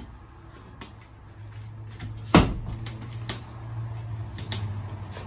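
Claw hammer smashing into drywall: one loud strike about two and a half seconds in, with a few lighter knocks around it, over a steady low hum.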